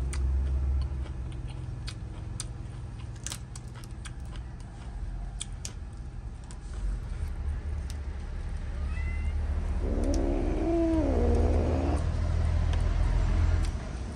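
A cat meows once, a drawn-out call of about two seconds that starts about ten seconds in. It sounds over a low steady hum, with a few faint clicks.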